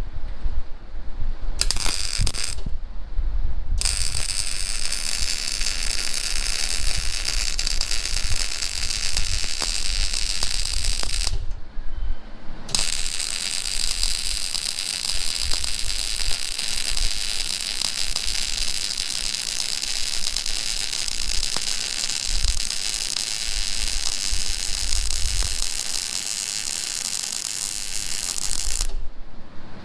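Electric arc welding: a steady crackling hiss, broken by short stops where the arc is broken off and struck again, twice near the start, once about eleven seconds in, and again near the end.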